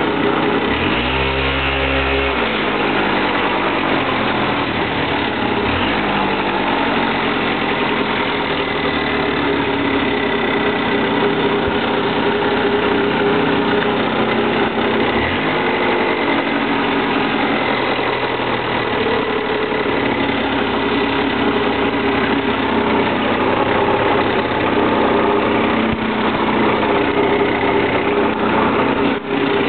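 Yamaha Razz 50cc two-stroke scooter engine running steadily, its pitch rising and falling slightly a few times.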